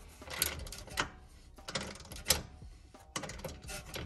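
Hand ratchet wrench clicking in short irregular runs as it tightens the top bolt of a rear differential brace, with a sharper metallic click a little over two seconds in.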